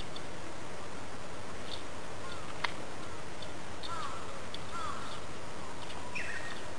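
A few short bird chirps, one after another, over a steady background hiss, with a single sharp click a little before the middle.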